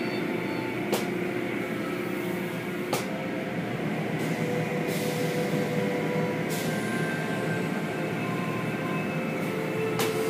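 Automatic car wash running: cloth mop curtains and brushes swishing over the cars amid water spray and a steady mechanical rumble, with a few sharp clicks.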